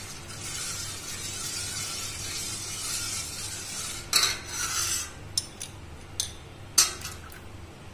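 Steel ladle stirring milk in a stainless steel pot, a steady swishing, as vinegar is added to curdle it into chhena. From about four seconds in come several sharp clinks of metal on the pot and of a spoon against a glass cup.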